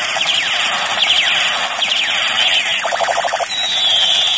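Battery-powered plastic toy combat gun playing its electronic firing sound effect: a run of falling laser-like zaps, a fast stuttering burst about three seconds in, and a long falling tone near the end.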